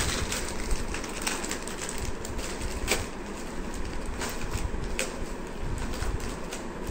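Plastic snack wrappers and cardboard packets crinkling and rustling as they are handled and torn open, with scattered sharp crackles.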